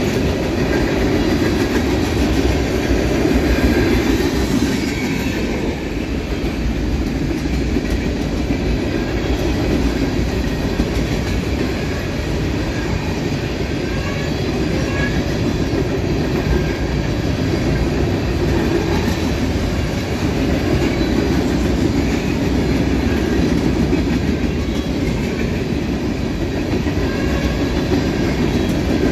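Freight train of covered hopper cars passing close by: a steady, loud rumble and clatter of steel wheels rolling on rail.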